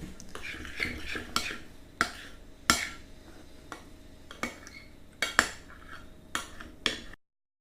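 A utensil stirring a thick slime mix of glue, boric-acid water and shaving foam in a bowl, with a soft scraping and a sharp clink against the bowl about every second. The sound cuts off abruptly near the end.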